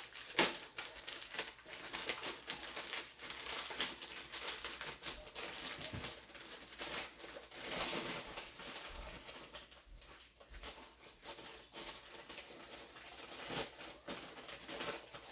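Packaging being handled and opened: irregular rustling and crinkling as a parcel is unwrapped.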